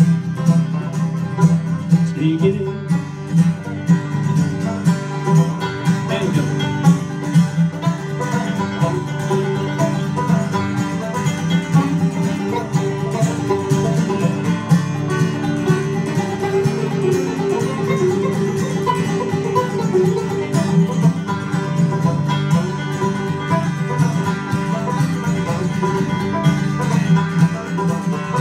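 Acoustic band playing an instrumental break in a country-bluegrass style: banjo picking over strummed acoustic guitar, with no singing.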